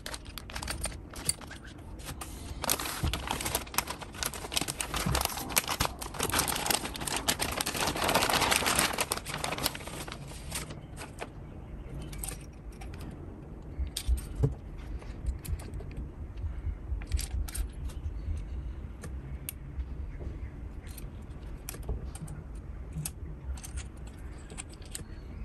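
Clear plastic packaging crinkling and rustling for about eight seconds as it is pulled off a carbon fiber travel tripod. It is followed by scattered light clicks and knocks as the tripod's legs and ball head are handled.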